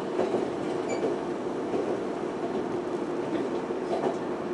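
Running noise of a Semboku Rapid Railway 5000 series electric train under way, heard from inside the car: a steady rumble and hum of wheels on rail, with a faint knock near the start and another near the end.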